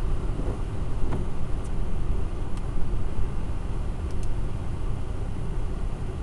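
Car driving on a rain-wet road, heard inside the cabin: a steady low rumble of engine and tyre noise, with a few faint ticks.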